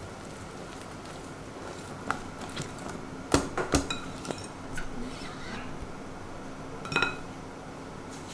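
Metal wire whisk stirring thick batter in a glass mixing bowl, the wires clinking against the glass now and then, with a cluster of clinks a little past three seconds and another near seven seconds.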